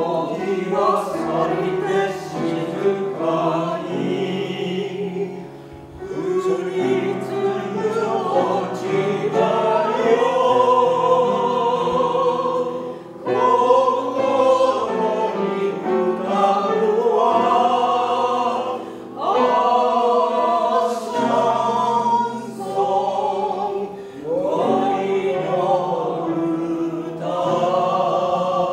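Amateur vocal ensemble singing a lyrical song in bel canto style, a woman's soprano voice together with men's voices. The singing comes in suddenly at the start and goes on in long phrases with short breaths between them.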